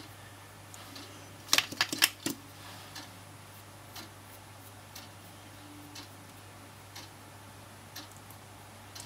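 A clock ticking once a second, with a quick run of five or six louder sharp clicks about a second and a half in.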